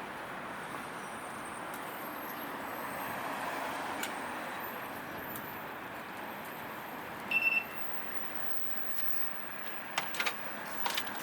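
Steady city background noise, with a short high electronic beep of a few quick pulses about seven seconds in, and several sharp clicks near the end.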